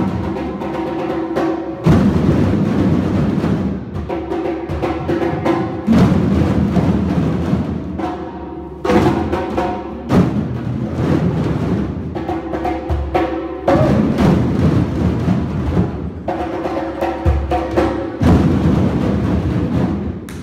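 Drum circle: a large group playing djembes, congas and other hand drums together. The playing runs in phrases of about two seconds, louder, fuller passages alternating with lighter ones, as the group follows a rhythm.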